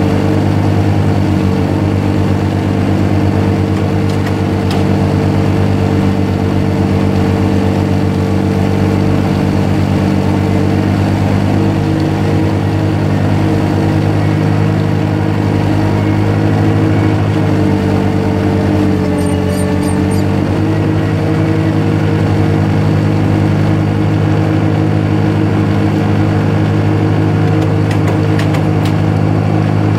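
Zamboni ice resurfacer's engine running steadily as the machine drives over the ice, a constant low hum that dips slightly in pitch about two-thirds of the way through.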